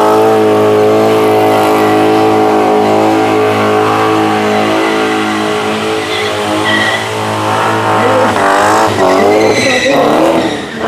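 Drift cars sliding with engines held at high revs and tyres squealing. Near the end the pitch swings up and down as the revs rise and fall.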